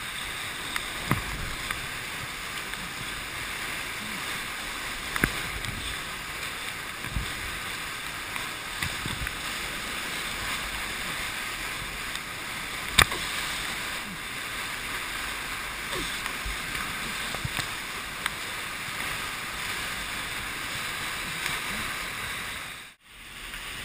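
Whitewater rapids rushing around a small inflatable river craft in a steady roar of churning water, with a few sharp knocks of water and hull hitting, the sharpest about halfway through.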